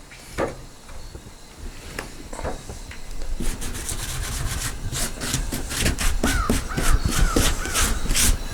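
Rough scraping and rubbing on a freshly sawn wooden slab. A few scattered knocks at first, then from about three seconds in a rapid, irregular run of scrapes that grows louder, with a few short squeaks.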